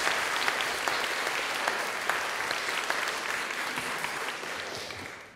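An audience clapping steadily, dying away near the end.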